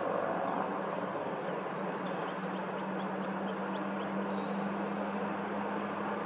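Steady rumble of distant motor traffic, with a low, even engine hum that joins about two seconds in.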